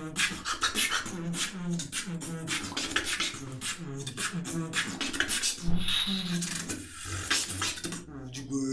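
Beatboxing: a fast run of mouth-made kick and snare strokes over a buzzing lip-roll bass line whose pitch steps up and down, with one hardest hit a little past halfway.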